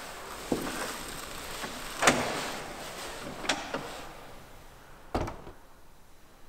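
Heavy wooden church door being worked: clunks and knocks of the latch and door, the loudest about two seconds in, then a deep thud about five seconds in, each echoing briefly in the church.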